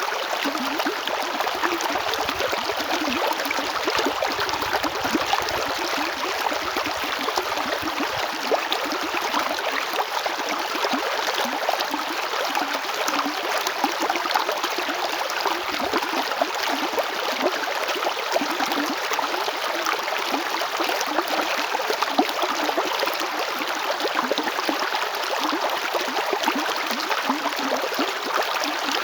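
A river running over rocks: a steady, even rush of flowing water with fine splashing and gurgling throughout.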